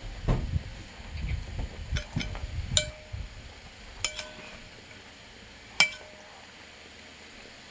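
Spoon clinking against a soup bowl: three sharp clinks, each ringing briefly, spread over about three seconds. They follow a few seconds of low chewing and eating noises.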